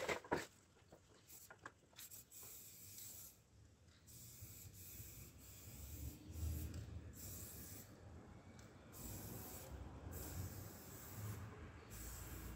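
Aerosol spray-paint can hissing in about six short bursts, each under a second to about a second long, as a wall is painted. A faint low rumble runs underneath from about halfway.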